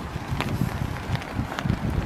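Wind buffeting the microphone, a rough low rumble, over light rain, with scattered sharp taps of drops and footsteps on a wet wooden boardwalk.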